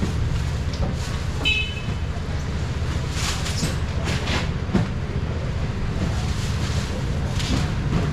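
Steady low rumble under street-market crowd noise, with scattered knocks and clatter.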